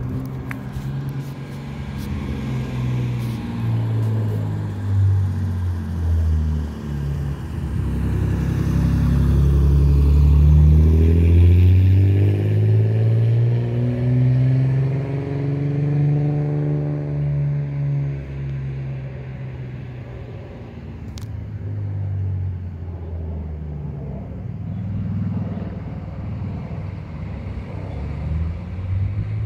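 Twin-engine jet airliner flying overhead: a low jet rumble that swells to its loudest about ten seconds in, its pitch sweeping slowly as it passes, then gradually fades. A few handling clicks at the start.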